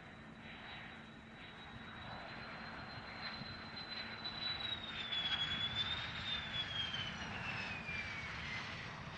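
F-16 Fighting Falcon jet engine at takeoff power, a steady roar with a high whine on top. The whine wavers, then slides down in pitch through the second half. It grows louder towards a peak a little past halfway, then eases.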